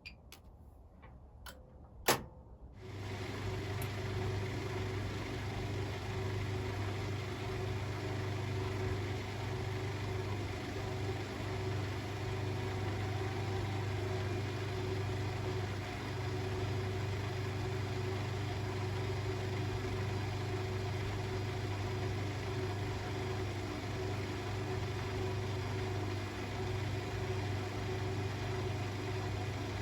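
Bosch washing machine starting up: a few clicks, one sharp, about two seconds in, then a steady low hum with a rushing noise over it that holds level.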